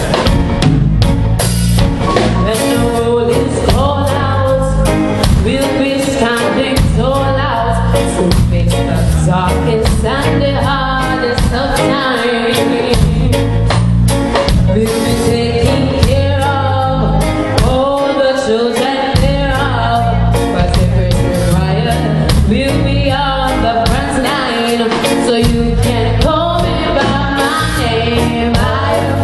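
A woman singing lead into a microphone over a live band of electric guitars, drum kit and keyboard, all amplified through stage speakers.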